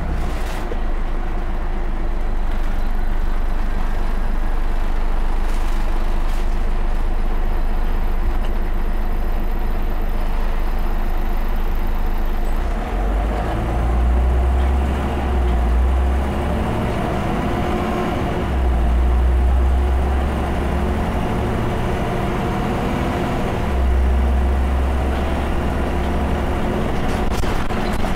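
Scania OmniCity single-deck bus under way, heard from inside the cabin: a steady engine hum with road noise. A deep low rumble swells three times in the second half.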